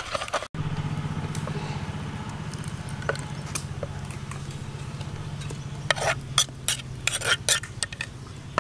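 Sauce being scraped from a clay mortar into a glass bowl: light scraping, then a quick run of sharp clicks and taps of clay and utensil against the bowl in the second half. A steady low hum runs underneath.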